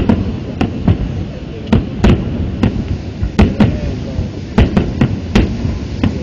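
Fireworks shells going off in an irregular series of sharp bangs, about a dozen in six seconds, over a steady low rumble.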